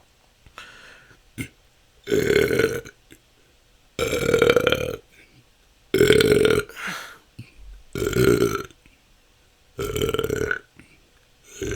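A person belching naturally and repeatedly: five loud burps, each lasting under a second, come about every two seconds, and a sixth starts right at the end.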